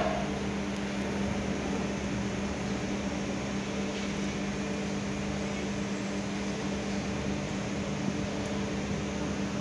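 Steady machine hum of room ventilation, with a few fixed low tones under a constant hiss. A brief knock comes right at the start.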